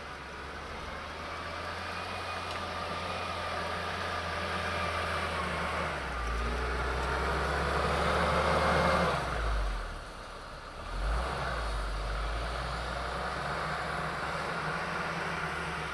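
UAZ Patriot SUV engine pulling under load as it ploughs through deep snow, revving up and rising to a peak about nine seconds in, easing off sharply for a moment, then picking up again.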